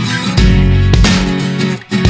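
Background music led by guitar, with a heavy bass coming in about half a second in.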